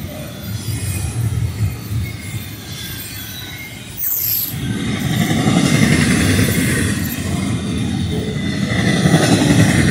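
Double-stack container freight train passing close by, its cars and wheels rumbling on the rails with thin squealing tones over the top. About four seconds in there is a brief high falling squeal, and the rumble turns louder from then on.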